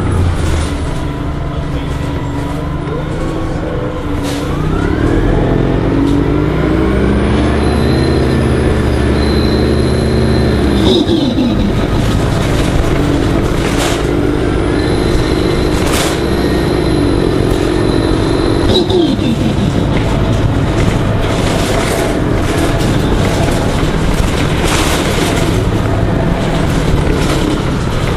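Orion 05.501 CNG transit bus engine accelerating through its gears. The engine note climbs and drops back at shifts about 11 and 19 seconds in, with a high whine during each climb, then runs steadily.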